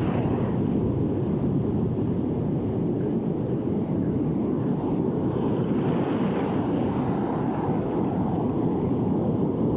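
Steady wind noise on the microphone over ocean surf washing up the beach, with the hiss of one wave's wash rising about five seconds in and fading a few seconds later.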